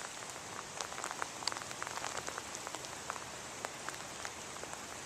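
Light rain falling, a steady hiss with scattered small drop ticks.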